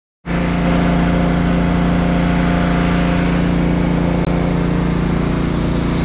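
Steady engine drone under the hiss of fire hoses spraying water.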